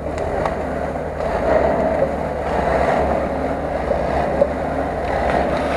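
Off-road vehicle engine running steadily, with wind buffeting the microphone.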